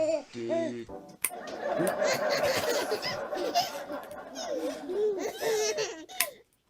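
Baby laughing: a few short pitched giggles, then after a brief break about a second in, a long unbroken run of laughter that stops shortly before the end.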